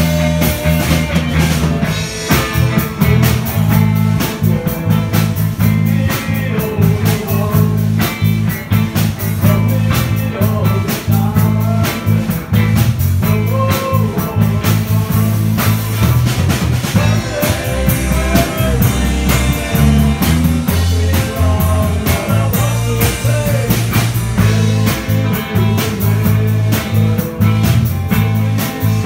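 A band playing blues-rock live: electric guitars over a steady beat and a strong bass line.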